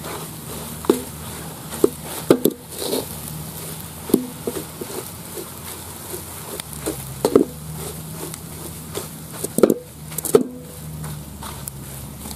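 A spoon stirs and mashes grated manioc in a large aluminium pot. Irregular knocks and scrapes of the spoon against the pot, about a dozen, are the loudest sounds.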